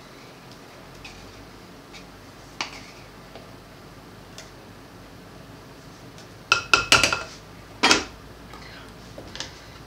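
Kitchenware clinking while condensed milk is scraped out of its can with a spatula: a few faint clicks, then a quick run of clinks with a short ring about two-thirds of the way through, followed by one louder knock.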